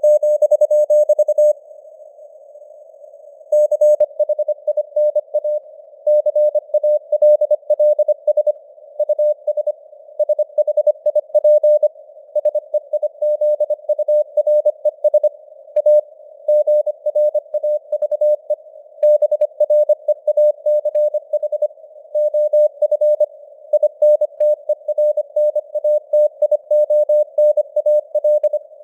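Morse code sent at 25 words per minute: a single steady tone of about 600 Hz keyed on and off in dots and dashes, over a narrow band of simulated radio hiss. The keying breaks off for about two seconds a second and a half in, between words, then carries on.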